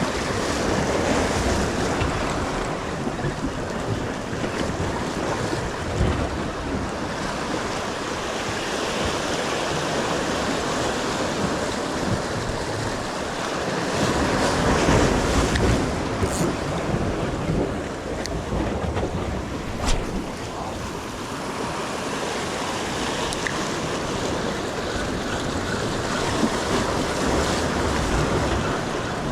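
Waves washing on the shore, swelling and easing, with wind buffeting the microphone. A single sharp click about two-thirds through.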